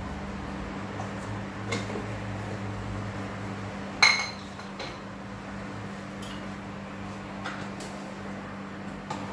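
A metal spoon working in a spice jar and an aluminium cooking pot gives a few light clinks, with one sharp ringing metal clank about four seconds in. A steady low hum runs underneath.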